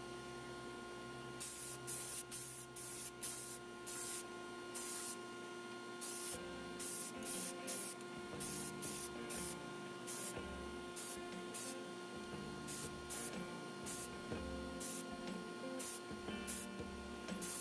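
Paint being sprayed onto a plastic scale model in many short hissing bursts, a few each second, over a steady hum.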